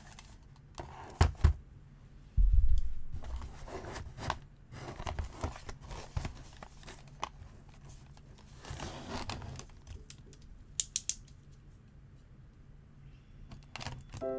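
A snap-off utility knife slitting and scraping the plastic shrink wrap on a small cardboard box, with the wrap crinkling and the box being handled. There are scattered knocks, a heavy thump about two and a half seconds in, and a quick run of three sharp clicks about eleven seconds in.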